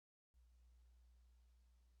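Near silence: faint low hum and hiss, with a brief total dropout at the very start.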